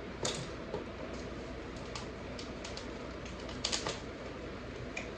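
Scattered light clicks and snaps of packaging and bike parts being handled during unboxing, a few spaced taps with a louder quick double click about three and a half seconds in.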